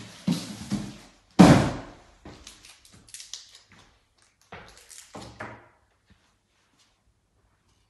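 A series of knocks and thuds: the loudest about a second and a half in, then a few lighter taps and bumps.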